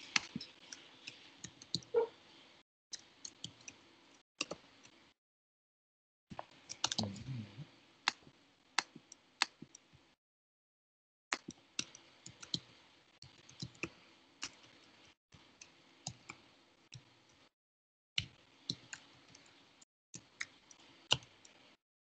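Computer keyboard typing: irregular, quiet keystroke clicks, with a dull thump about seven seconds in. The sound drops out to silence for a second or so several times.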